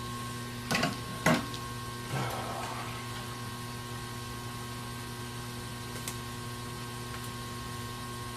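Steady electrical hum on a repair bench, with two sharp knocks about a second in and a brief clatter near two seconds.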